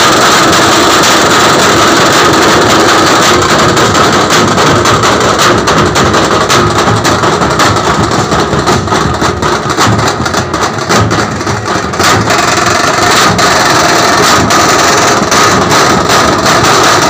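A drum band of large double-headed drums beaten with sticks, playing loud, fast, dense rhythms. The beating eases off for a few seconds in the middle, then picks up again at full strength.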